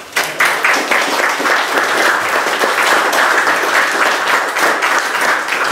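Audience applauding with dense, steady clapping that starts suddenly just after the beginning, at the close of a talk.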